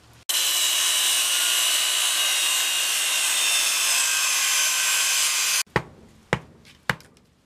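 A power tool cutting with a loud, steady, hissing run that starts and stops abruptly, lasting about five seconds. It is followed by a series of sharp knocks, about two a second.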